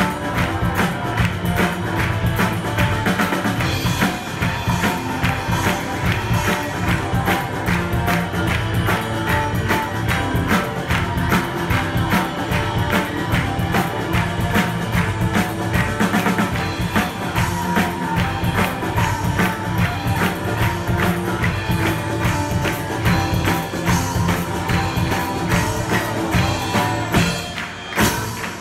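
Live folk-rock band playing an up-tempo tune with a steady driving beat: flute over electric guitar and drum kit. A brief break comes near the end.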